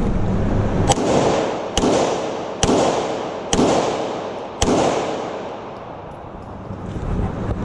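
Five handgun shots, a little under a second apart, each followed by a ringing echo off the range.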